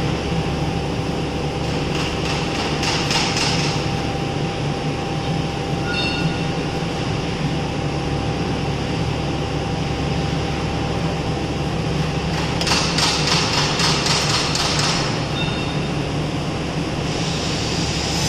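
A PUR honeycomb-door laminating line running: a steady mechanical hum and rumble with a couple of constant tones, and stretches of rattling clatter a few seconds in and again for about two seconds later on.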